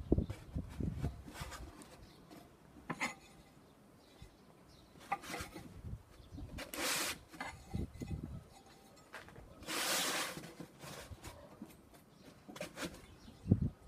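Ceramic tiles being handled and laid out on a foam mat: scattered light knocks and clicks as tiles are set down and butted together, with a couple of longer scraping rubs about halfway through and again a few seconds later.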